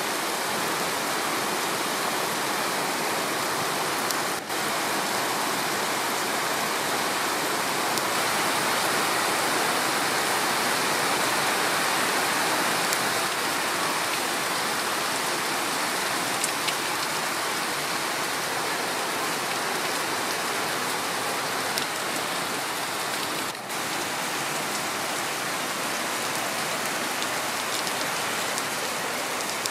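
Heavy rain falling steadily on wet paving and hard surfaces: a dense, even hiss with a few single drop hits, dipping briefly twice.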